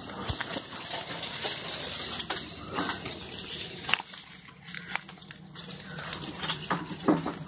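Leafy twigs and branches rustling, cracking and snapping as hands pull and break them away from the well's opening, a string of irregular clicks and crackles.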